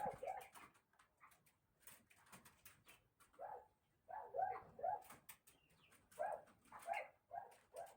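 Broiler chickens from a flock sick with wheezing and coughing, giving short, low calls in runs of two or three several times over, with scattered clicks between them.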